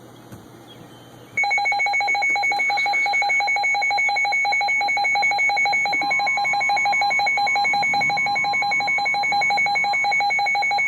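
NOAA weather radio alert alarm going off: a loud, rapidly pulsing electronic beep starts about a second and a half in, and a steady tone joins it about six seconds in. The alarm signals that a weather warning, here a special marine warning, is being broadcast.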